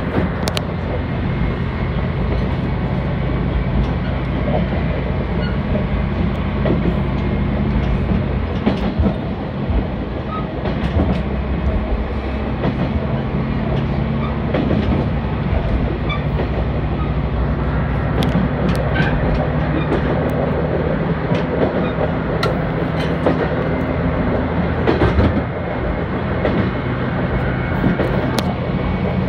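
Diesel railcar running along the line, heard from inside at the front: the engine runs steadily, its note changing briefly about ten seconds in. The wheels click over rail joints now and then.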